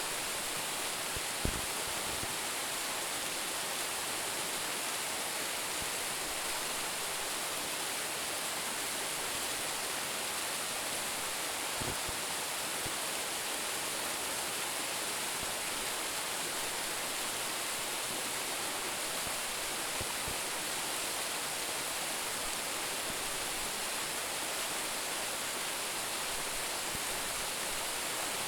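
Waterfall of about 10 m drop rushing steadily, an even hiss of falling water. A few brief low bumps come through, about a second and a half in, near the middle and again later.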